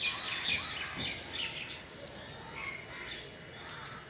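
Several small birds chirping in short, quick calls, one after another.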